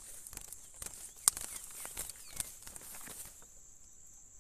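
Rustling footsteps in dry grass with scattered sharp clicks, one louder click about a second in, over a steady high insect drone that stops about three seconds in; a couple of faint brief chirps.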